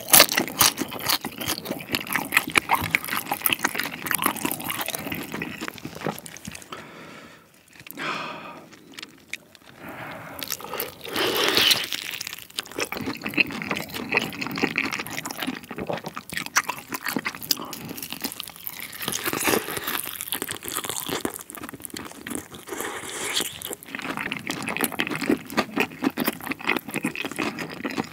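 Close-miked crunching and chewing of sauce-coated yangnyeom fried chicken drumsticks, biting through the coated skin and meat, with a brief lull about eight seconds in.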